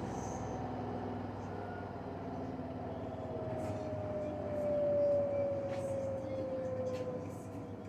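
LG washing machine spinning on the cotton programme at the 1400 rpm setting: a steady rumble with a motor whine that falls slowly in pitch as the drum slows, briefly louder about five seconds in.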